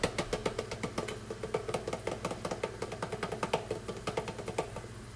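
Rapid, even tapping of a hand against a plastic cup, several taps a second, shaking flour out into a pan of melted butter; the tapping stops shortly before the end.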